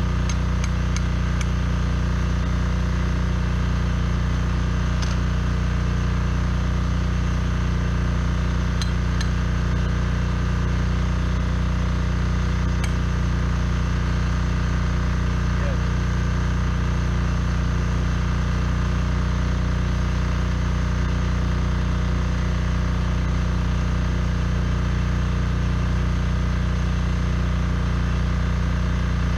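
A small engine running steadily at an even idle, with a few faint metallic clinks.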